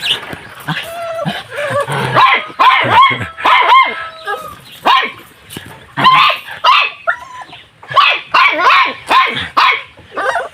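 Dog barking and yipping over and over, short high calls in quick succession.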